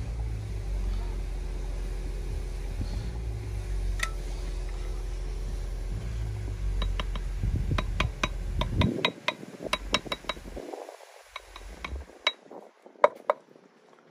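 Sharp metallic taps of a small mason's hammer on a concrete block, striking it down into the wet concrete to level it, in quick irregular runs from about seven seconds in. A steady low rumble underlies the first nine seconds, then stops.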